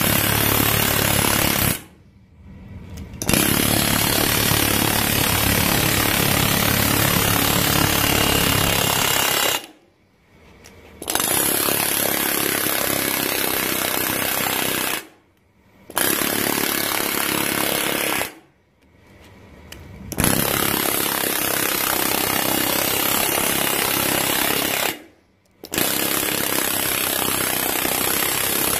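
Pneumatic multi-impact air hammer rattling rapidly against sheet metal, stretching and laying over a flange edge. It runs in six long bursts with five short pauses of one to two seconds between them.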